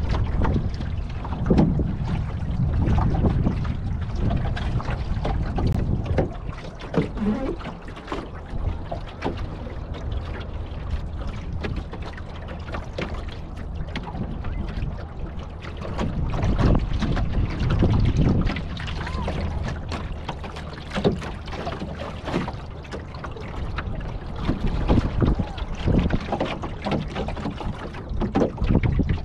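Water lapping and splashing against the wooden hull of a Chesapeake Light Craft Northeaster Dory under sail, with scattered knocks. Wind buffets the microphone throughout, growing stronger and easing off in stretches.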